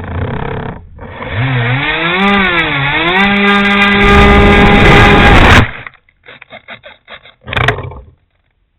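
Electric motor and propeller of an RC model plane whining, its pitch rising and dipping with the throttle and then holding steady, over heavy wind buffeting on the microphone. The whine cuts off suddenly about five and a half seconds in, followed by a string of short stuttering pulses and one louder burst.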